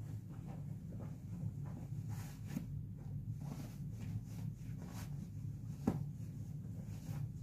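Fabric rustling and rubbing as a cotton pillowcase is handled and pulled over a pillow, with scattered soft ticks and one sharper click about six seconds in, over a low steady hum.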